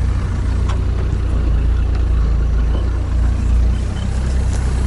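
Sherp all-terrain vehicle on the move, its diesel engine running at a steady low drone.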